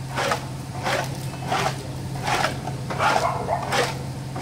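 A dog barking repeatedly, about once every 0.7 seconds, over a steady low hum.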